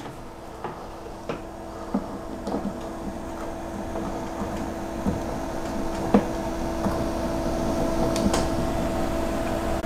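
Portable 12-volt car fridge's compressor running with a steady hum that grows gradually louder. A plug knocks and clicks a few times against a power station's AC outlet as it is pushed in.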